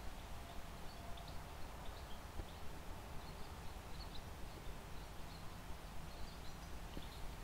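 Faint outdoor ambience with sparse, faint bird chirps, and soft quick pops a few times a second from a pipe being puffed.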